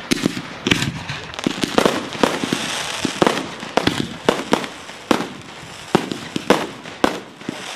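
Fireworks display, with aerial shells bursting overhead in a rapid, irregular series of sharp bangs, several a second, over a continuous hiss.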